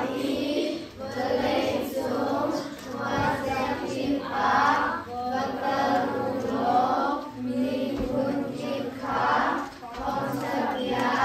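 A children's choir singing together, phrase after phrase with brief pauses for breath between.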